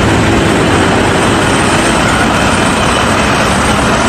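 A double-decker city bus driving past in street traffic: steady engine and road noise, loud and even throughout.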